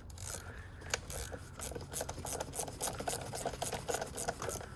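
A run of light, irregular clicks and scraping, several a second, from a hand tool working at a car battery's negative terminal.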